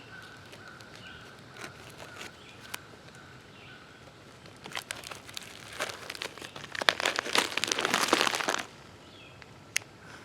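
Dense crinkling and rustling for about four seconds in the second half, loudest just before it stops abruptly, with a few scattered clicks before and after.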